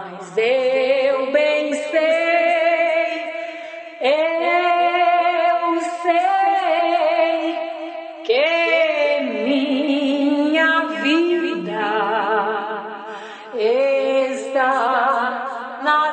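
A woman sings a hymn melody over music, without clear words. She holds long notes with a wide vibrato, and each phrase starts with a swoop up in pitch, about every four seconds.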